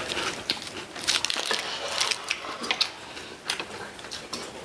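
Eating sounds: food being chewed and bitten, with many short, irregular crunches and clicks.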